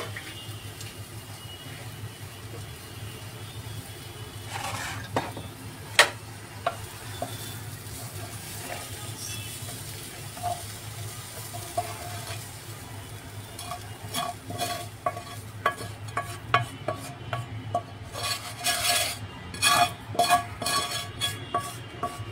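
A wooden spatula scraping and knocking against a metal frying pan as cooked corn and chicken filling is scooped out. There is a sharp knock about six seconds in, then a quick run of scrapes and taps through the second half.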